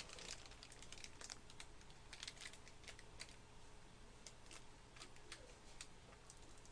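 Faint, scattered crinkles and ticks from the plastic wrapper of an individually wrapped roll cake being handled in the fingers, over low room hum.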